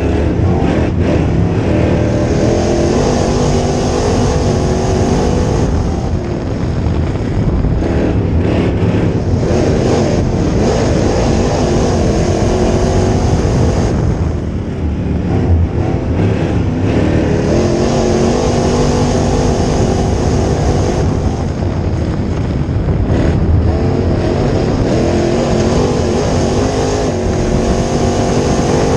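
Crate Late Model dirt race car's V8 engine at racing speed, heard from inside the cockpit. Its pitch climbs on the straights and falls off each time the driver lifts for a turn, a cycle that repeats every several seconds.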